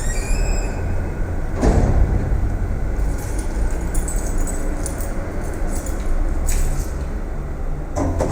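Underground parking garage ambience: a steady low rumble of cars echoing off the concrete, with a heavy thump about a second and a half in and another near the end, and faint high squeaks in between.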